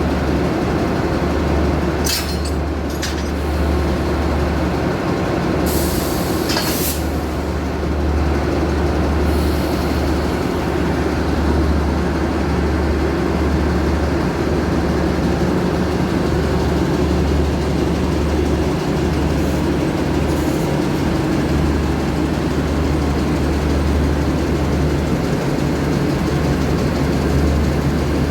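Diesel-electric locomotive engine running with a steady low hum. Two short hisses of air, typical of the brake system, come about two and six seconds in.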